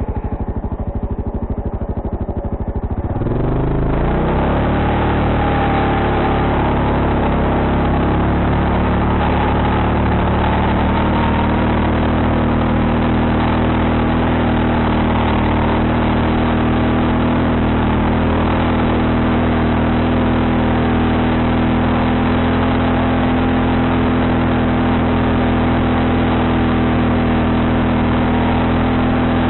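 ATV engine running low for about three seconds, then revving up and holding steady high revs.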